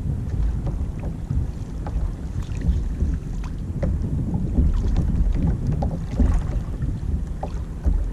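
Wind buffeting the microphone as a rumble, with choppy sea water lapping and splashing against a kayak hull in scattered short slaps.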